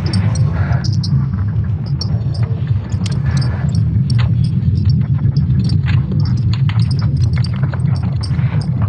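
Sonification of Earth's magnetic field, made from ESA Swarm satellite magnetic signals during a solar storm: a steady deep rumbling with many scattered crackles and creaks over it.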